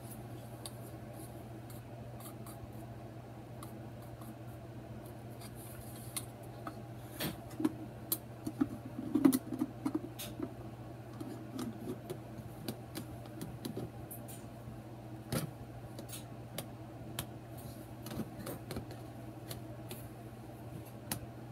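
Plastic parts of an animatronic's head base being handled and pushed together: scattered light clicks, taps and rubbing, with a few sharper clicks, over a steady low hum.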